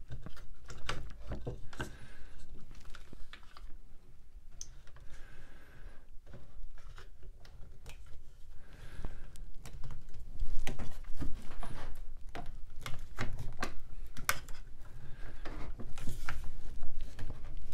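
Quick-Grip one-handed bar clamp being squeezed repeatedly, its trigger ratchet giving irregular clusters of sharp clicks as the clamp draws a glued table-leg joint tight against a wooden caul. A few light knocks from handling the clamp and the wooden parts.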